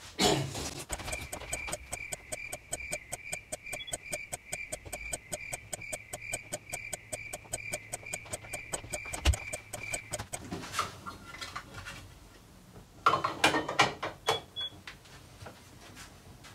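A clock-ticking sound effect: rapid, evenly spaced ticks with a pulsing high tone, lasting about nine seconds, then a few knocks near the end.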